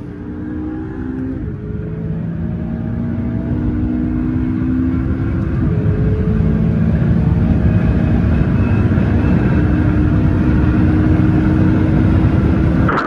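McLaren 570S's twin-turbo V8 at full throttle in a highway roll race, heard from inside the cabin. The engine note climbs steadily through the gears and drops with a quick upshift about a second and a half in and again about six seconds in, over road and wind noise, growing louder as it pulls.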